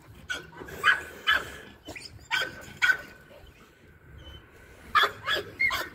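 American pit bull terrier barking in short, sharp barks during play with a rope toy, several in quick succession and then a couple more about five seconds in.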